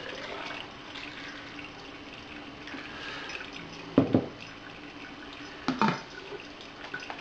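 Distilled spirit poured from a glass jar through a plastic funnel into a glass test cylinder, a steady trickle of liquid. About four seconds in, the glass jar is set down on a wooden table with a knock, and a second knock follows near the six-second mark.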